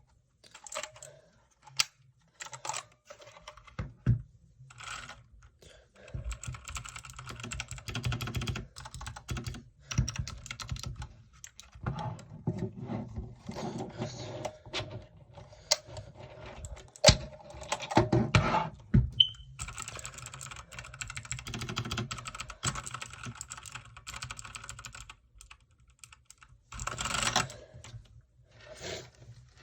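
Typing on a TMKB T68SE mechanical keyboard: scattered key presses at first, then long runs of rapid key clicks.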